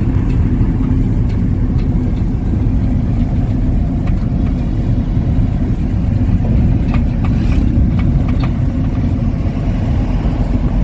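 Steady low rumble of engine and road noise inside the cabin of a moving vehicle.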